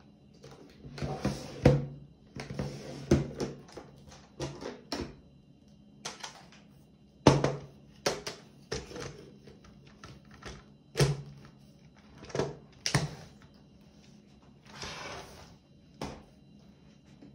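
Handling noises: a string of irregular clicks and knocks with a few short rustles, like hard plastic parts and packaging being handled and fitted together. There is no motor running.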